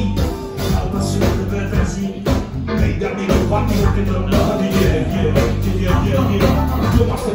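A live band playing loudly, with a lead singer's voice over electric bass guitar and the rest of the band.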